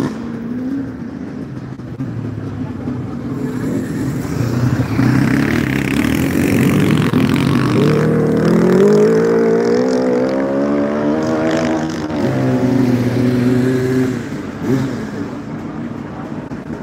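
Motocross sidecar outfit's engine revving hard as it accelerates past, its pitch climbing and growing louder over several seconds. The pitch drops sharply about twelve seconds in, holds lower for a couple of seconds, then the engine fades away.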